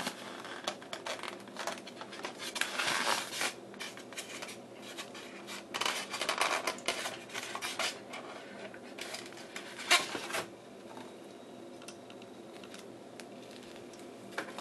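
Styrofoam packaging rubbing and scraping as a die-cast model truck is worked out of its tray, in two louder stretches, with a sharp click about ten seconds in; quieter handling follows.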